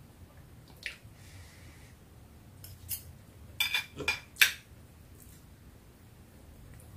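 Spoon scraping and tapping on a disposable plate on a plastic lap tray while eating rice: a few scattered clicks, then a quick cluster of louder clicks about three and a half to four and a half seconds in.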